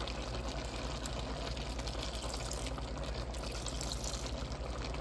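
A pan of pork igado (pork and liver with carrots and beans) simmering with a steady liquid bubbling and hiss, over a steady low hum.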